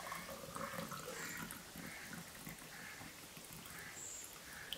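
Butterfly pea flower tea poured in a thin stream into a drinking glass, a faint steady trickle and splash as the glass fills.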